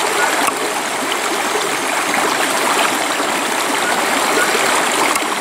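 Steady rush of a flowing stream, with a faint knock or two from the knife work.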